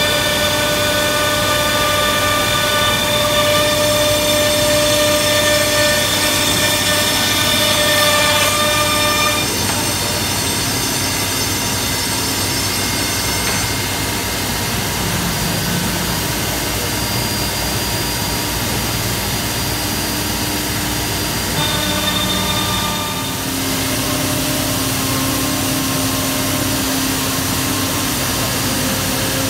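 AXYZ 5018 multi-spindle CNC router running and cutting a board, its spindles and dust extraction making a loud, steady machine noise. A whine of several pitches sounds over the first nine seconds or so, then drops away. It comes back briefly about 22 seconds in and gives way to a lower steady hum.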